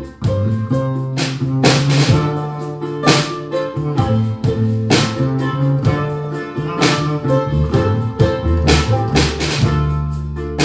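A band playing an instrumental break between verses: guitar chords over a drum kit, with a cymbal or snare hit roughly every one to two seconds.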